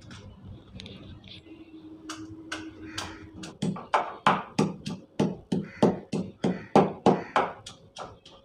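Pestle pounding peppercorns, cumin, a dried red chilli and garlic in a mortar: an even run of knocks, about three a second, growing much louder about three and a half seconds in.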